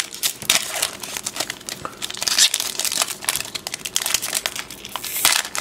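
Foil wrapper of a Yu-Gi-Oh! Speed Duel booster pack crinkling and tearing as it is pulled open by hand, a dense run of irregular crackles.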